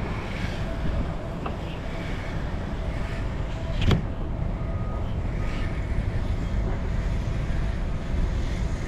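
Car running, heard from inside the cabin as a steady low rumble while it moves up the drive-thru lane, with a single sharp click or knock about four seconds in.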